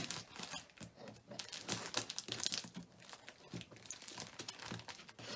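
Packing paper and cardboard crinkling and rustling in irregular bursts as a shipping box is unpacked by hand.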